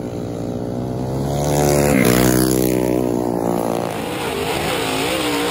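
Small racing kart engines running laps on a dirt track. The engine note climbs under throttle, drops sharply as one passes about two seconds in, and then rises and falls repeatedly through the turns.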